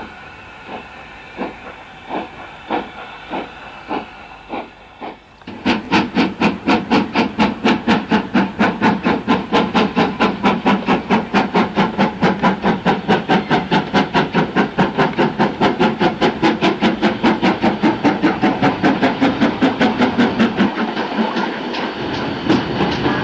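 Steam locomotive exhaust beats: slow, fairly quiet chuffs about one and a half a second, then, after a sudden change about five seconds in, loud rapid chuffs about three a second from GWR Manor class 4-6-0 7828 Odney Manor approaching with its train.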